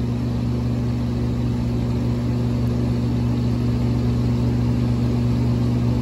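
Hayward HeatPro heat pump's condenser fan motor running with a steady hum while the compressor stays off: the compressor contactor gets its 24-volt coil signal but is not pulling in.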